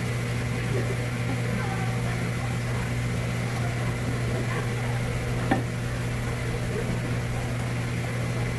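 Steady low machine hum with faint scraping and one sharp knock about five and a half seconds in.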